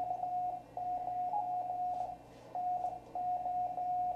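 Morse code from a shortwave amateur radio receiver: a single steady beep keyed on and off in short and long elements over faint band hiss. It is a live contact between two ham operators.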